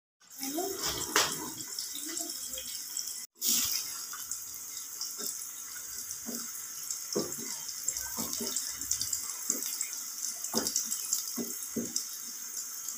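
Onions frying in hot oil in a small aluminium pan for a tadka: a steady sizzle with scattered crackles and pops. The sound breaks off for a moment a few seconds in.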